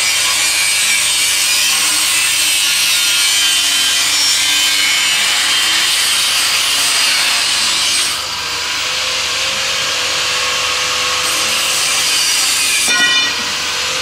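Pipe bending machine running as it bends a steel tube: a steady, loud rasping hiss that drops a little about eight seconds in, with a short squeal near the end.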